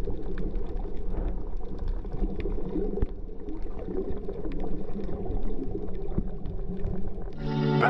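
Underwater sound picked up by a submerged camera: a muffled low rumble of moving water with scattered sharp crackling clicks. Music comes in near the end.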